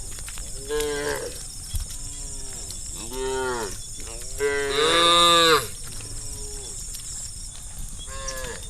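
Several cattle in a herd mooing in turn: a string of separate drawn-out calls, some faint, with the loudest and longest about halfway through.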